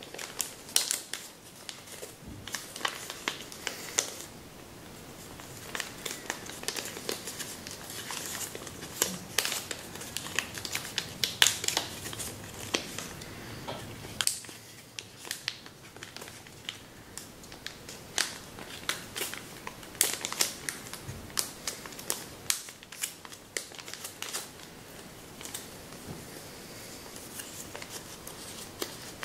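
Sheet of kami origami paper crinkling and crackling as hands fold and shape it, with many irregular sharp clicks as creases are pressed in.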